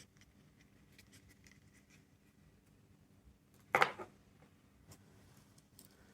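Faint scattered clicks of small plastic objects being handled, with one sharp, louder clack about four seconds in.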